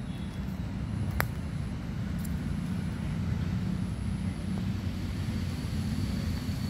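Steady low background rumble, with a single sharp click a little over a second in.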